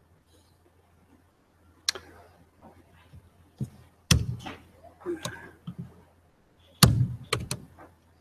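A series of sharp knocks and thumps: one about two seconds in, a heavy one about four seconds in, and a cluster of three near the end, with quieter clatter between.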